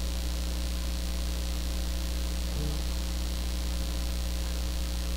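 Steady low electrical mains hum with a faint buzz. A brief faint murmur comes about two and a half seconds in.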